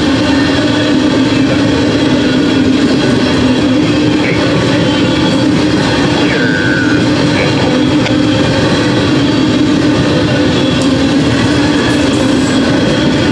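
Freight train hopper cars rolling steadily past on the rails, with one brief squeal partway through.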